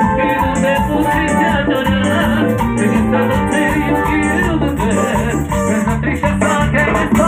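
A live band's amplified Latin dance music, with singing over a steady beat and a high rattling percussion part.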